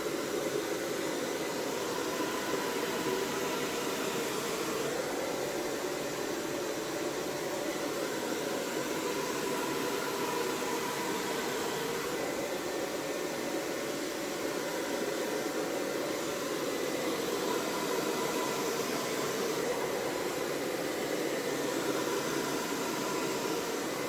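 Hair dryer running, a steady rush of blown air with a faint motor whine, the tone of the air wavering slightly, used to blow wet acrylic paint across a canvas in a Dutch pour.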